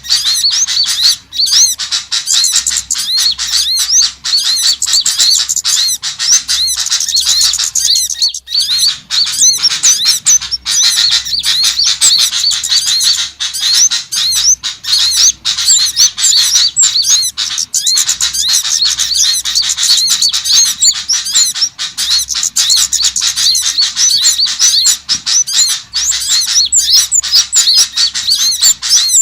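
Bird lure recording of small songbirds: a dense, continuous chatter of rapid, high-pitched chirps and squeaks with no pause.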